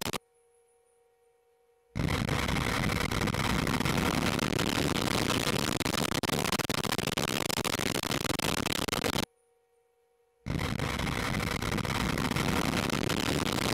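Vega-C rocket's P120C solid-fuel first stage at liftoff: a loud, dense, steady roar. It drops out twice to near silence, just after the start for about two seconds and again for just over a second after nine seconds.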